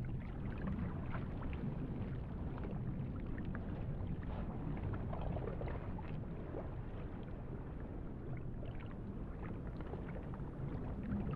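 Underwater ambience: a steady, low wash of water noise with faint scattered clicks and crackles.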